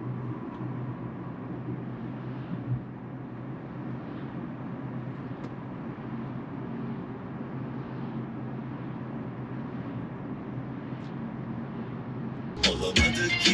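Steady low road and engine noise inside a moving car. Music starts up near the end.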